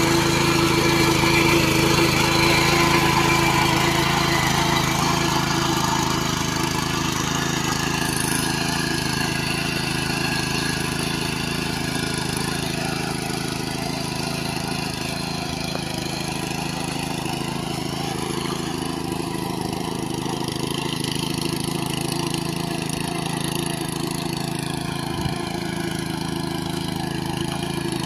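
Small walk-behind power tiller's engine running steadily under load as its rotary blades churn flooded paddy-field mud, growing fainter over the first several seconds as the machine moves away, then holding level.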